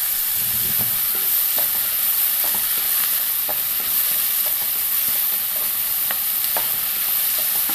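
Sliced onions and green chillies sizzling in oil in a nonstick pan on medium heat, with a steady hiss. A wooden spatula stirs them, with small scrapes and taps against the pan now and then.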